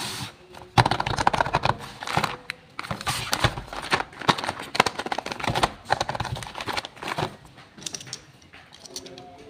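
Toy packaging being handled and opened: rapid clattering and crinkling of plastic and cardboard, busiest for the first several seconds and thinning out near the end.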